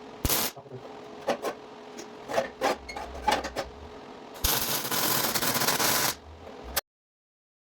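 A scatter of sharp knocks and clicks, then about two seconds of harsh hissing, rasping noise; the sound cuts off abruptly after a last click.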